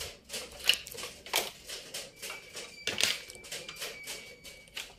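Irregular clicks and light knocks of cable plugs and connectors being handled and plugged into a power amplifier's jacks, with a faint thin high tone for a couple of seconds in the middle.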